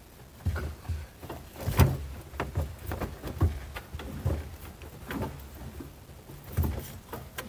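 Irregular knocks, bumps and scrapes of a lawn mower battery being worked and slid up into its tray among the wiring, with a sharper clunk about two seconds in.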